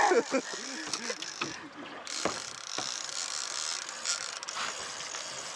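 A heavy fishing reel being cranked, its gears whirring and clicking as line is reeled in, with a brief pause in the middle and a couple of knocks. The reeling is the "reel down" stroke of snagging spoonbill, taking up line between upward pulls of the rod.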